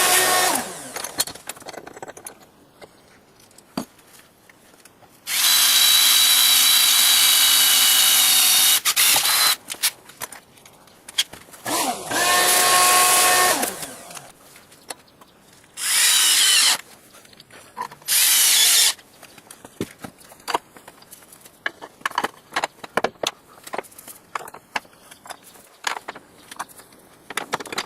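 Electric drill running in several bursts of a steady whine, the longest about four seconds, as holes are drilled for the rack's hardware. In the last third the drill stops and only light clicks and knocks of handled tools and parts remain.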